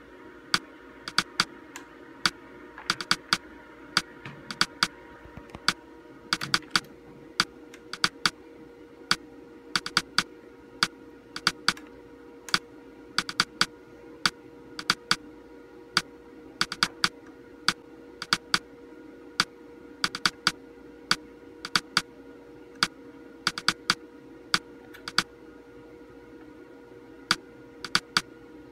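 Monitor's front-panel menu buttons clicking, pressed singly and in quick runs of two or three, stepping the on-screen green colour level up and down. A steady hum runs underneath.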